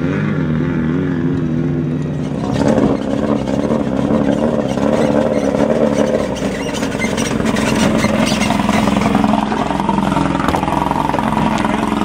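Off-road race truck engine running as the truck comes closer. Its pitch rises and falls at first, then holds steadier and gets louder about two and a half seconds in.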